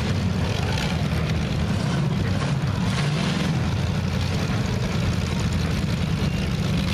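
Several dirt-track figure-8 race car engines running together in a steady, low rumble as the cars idle and creep into line.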